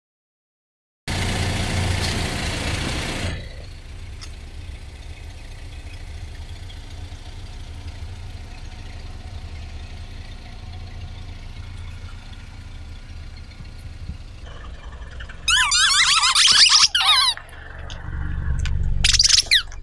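Car engine idling with a low, steady rumble, after a loud rush of noise in the first couple of seconds. Near the end come two bursts of high, wavering squeaks, and the engine's rumble swells between them.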